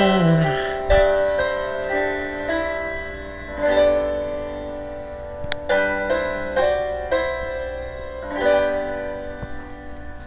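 Instrumental backing track playing the song's slow closing piano chords, each chord struck and left to ring, the music fading toward the end. A held sung note dies away right at the start, and there is a brief click about halfway.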